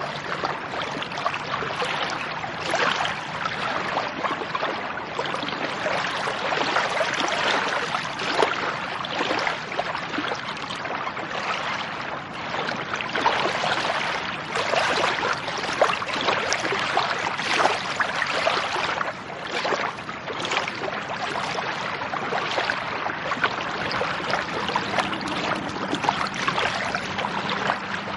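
Lake water at the shore: a continuous wash of many small, quick splashes and ripples, steady throughout.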